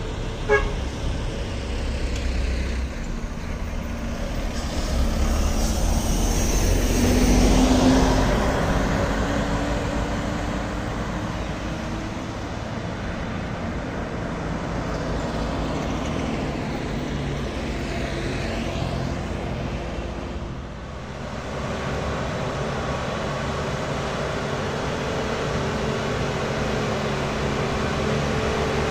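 Diesel bus and truck engines passing on the road, with a short horn toot about half a second in. The loudest pass is around seven to eight seconds in, its engine tone rising. From about two-thirds of the way through, a Hino box truck's diesel engine pulls steadily.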